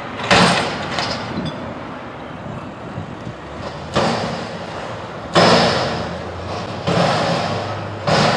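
Front-loading garbage truck with a McNeilus body shaking an upturned dumpster over its hopper: five loud metal bangs spread over several seconds, each ringing off, as the container is jolted to knock the trash loose. The truck's engine runs steadily underneath.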